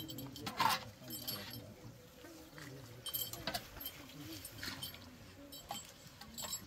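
Metal bowl clinking against the rim and sides of a large metal cooking pot as broth is scooped out, several light ringing clinks scattered through, with murmured voices underneath.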